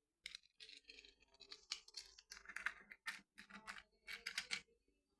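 Plastic Lego pieces being handled and moved about: a run of faint, irregular clicks, rattles and scraping.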